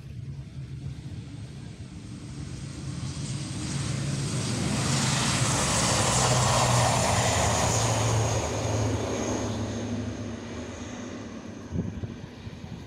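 Fokker 50's twin turboprop engines passing along the runway: a steady propeller drone with a high turbine whine. It swells to its loudest a few seconds in, then fades, with the whine slowly falling in pitch.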